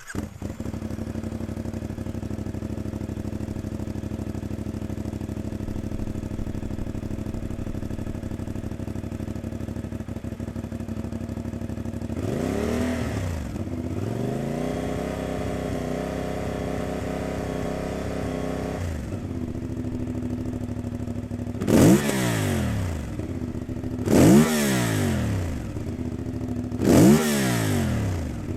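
CFMOTO 450MT's parallel-twin engine through its stock exhaust, idling steadily. About midway it rises to a steady hold at about 4000 rpm for several seconds, then drops back to idle. Near the end come three quick throttle blips up to 8 to 9000 rpm, each rising and falling sharply.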